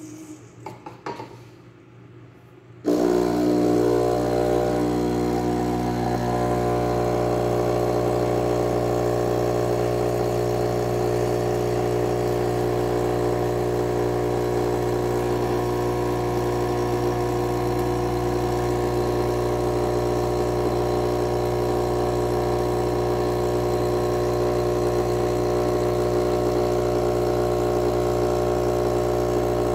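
Nikai coffee machine's pump starting about three seconds in and then running with a steady buzz as it brews coffee into the glass.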